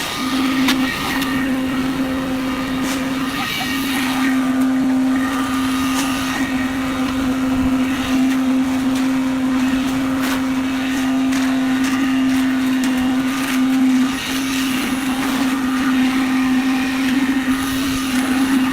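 A machine starts up at the beginning and runs with a steady, even hum, with scattered knocks and rattles over it throughout.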